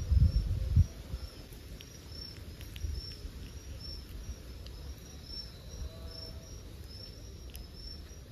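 Outdoor insect chorus: a short, high chirp repeating about twice a second, cricket-like, over a low rumble. A few louder low knocks come in the first second.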